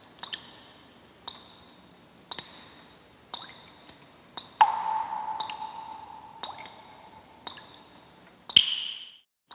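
Water dripping, single drops falling one at a time about once a second, each a sharp plink with a short ringing tail. About halfway through, one drop leaves a lower ring that hangs for a couple of seconds. Near the end the sound cuts out briefly and then a louder drop lands.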